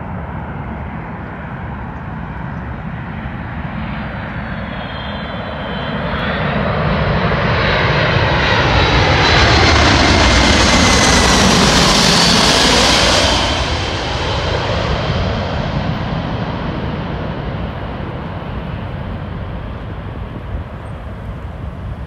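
Boeing C-17 Globemaster III's four Pratt & Whitney F117 turbofan engines on final approach, passing low overhead: a rumble with a high whine that builds to its loudest about ten seconds in. It drops off sharply just past the peak, the whine falling in pitch, and fades as the jet heads for the runway.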